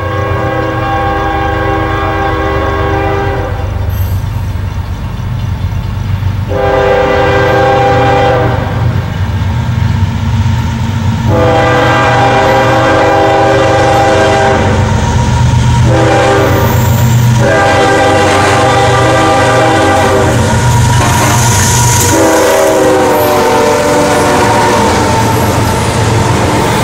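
Freight locomotive's air horn, several notes sounding together, blown in five long blasts as the train approaches, over the steady low rumble of its diesel engines. Near the end the intermodal cars roll past with wheels clicking over the rail joints.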